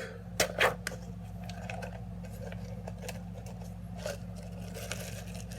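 A can of Pringles being handled: two sharp clicks and scrapes about half a second in, then faint scattered ticks and rustles over a steady low hum.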